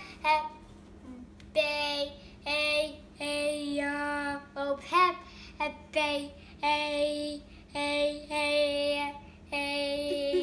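A young child singing a string of short held notes, mostly on the same pitch, with one note that bends up and back down about five seconds in.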